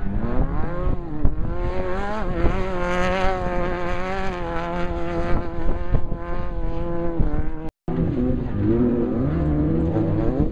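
Off-road race vehicle engines running at high revs: one engine climbs in pitch and then holds steady. After a brief break near the end, a different engine is heard with its pitch rising and falling.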